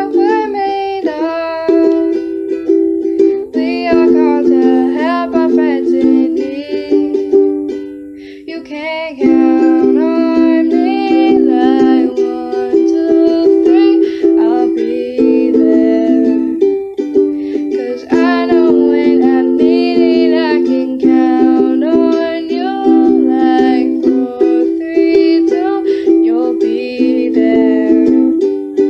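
Ukulele strummed in steady chords while a girl sings a melody over it, with a short break in the music about eight seconds in.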